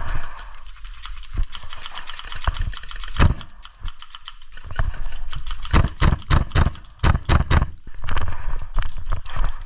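Airsoft gunfire: a fast, even string of sharp clicks for about two seconds, typical of a rifle on full auto. Later comes a run of heavier separate thuds.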